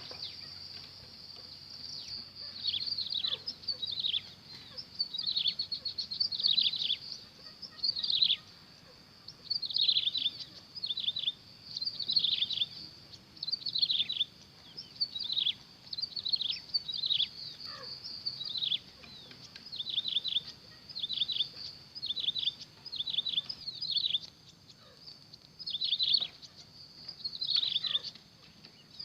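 Quail calling: clusters of short, high notes that sweep downward, repeated about every second, over a steady high background hum.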